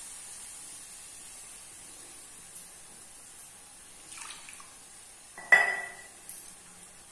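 Steel kitchen utensils being handled: a short scrape, then one sharp metallic clink about halfway through that rings briefly and is the loudest sound.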